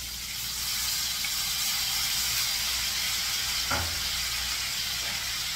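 Pork chops sizzling in a hot frying pan with butter, the sizzle picking up about a second in as soy sauce goes into the pan. A single short knock a little after halfway.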